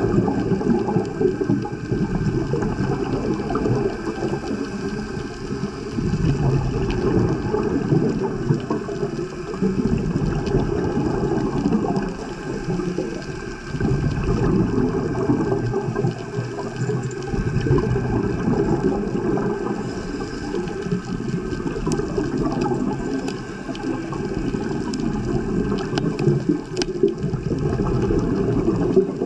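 Muffled underwater rumble and gurgling of moving water, swelling and easing every few seconds, with a few faint clicks.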